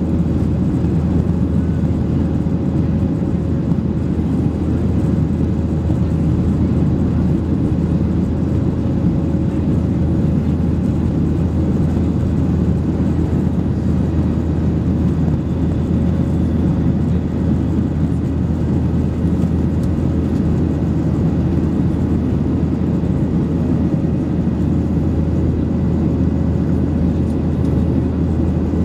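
Cabin noise of a Boeing 737-700 climbing after takeoff, heard from a window seat over the wing: the steady, low-pitched noise of its CFM56-7B turbofans and the rushing airflow, with a faint steady hum on top.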